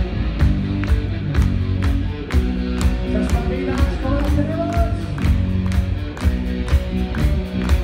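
Live rock band playing: distorted electric guitar over bass and drums, with a steady beat about twice a second and a note bending up and down around the middle.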